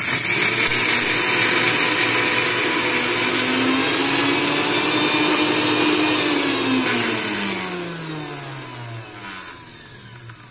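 Electric mixer grinder running at full speed, grinding a roasted pigeon-pea (toor dal), dried red chilli, garlic and coconut chutney with very little water. It is switched off about six or seven seconds in, and its motor whine falls in pitch as it spins down.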